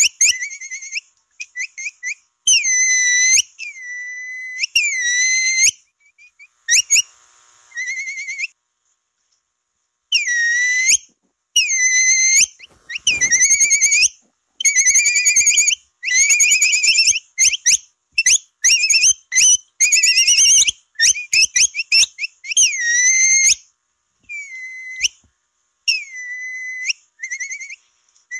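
Capybara whistle calls, of the kind played as a lure to attract capybaras: short, high, wavering whistles repeated in quick runs, with a pause of a second or two about a third of the way through.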